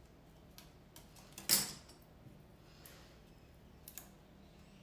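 Light handling noises of craft work on a wooden tabletop: a few faint clicks and taps, with one louder brief scrape about a second and a half in.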